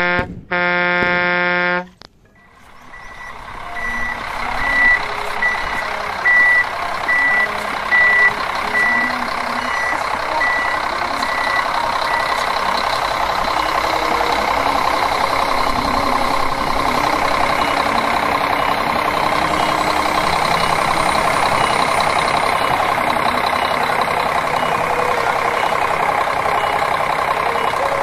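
A horn blast lasting nearly two seconds, then a heavy vehicle's engine running steadily, its level building up over the next few seconds. A reversing alarm beeps about every 0.8 seconds until about twelve seconds in.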